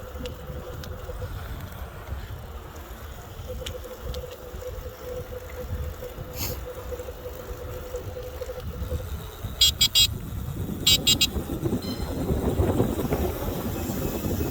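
Electric scooter riding on a trail: a steady motor whine over wind rumble on the microphone, then two short bursts of rapid high beeps from a horn about ten and eleven seconds in. The wind rumble grows louder near the end.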